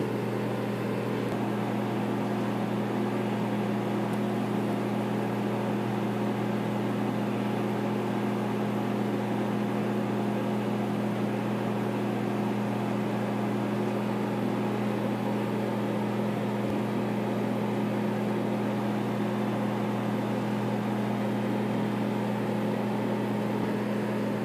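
LG microwave oven running, a steady low hum from its transformer and fan as it heats a bag of popcorn. No kernels are popping yet.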